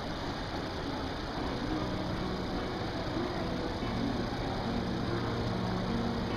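Steady hum and hiss of a large station concourse, heard while riding a moving walkway, with faint low steady tones coming in about two seconds in.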